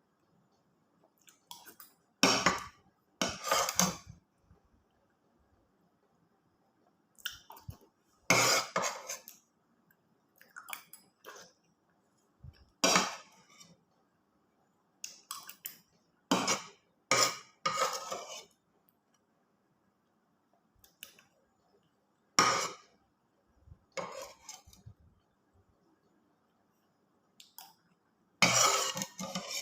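Spoon and fork clinking and scraping on a plate while eating, in short irregular bursts every few seconds with quiet gaps between.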